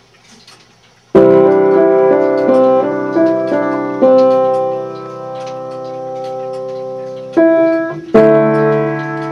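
Piano music: after a quiet first second, loud chords are struck and ring on, with new chords about four, seven and a half and eight seconds in. Faint regular ticking runs underneath.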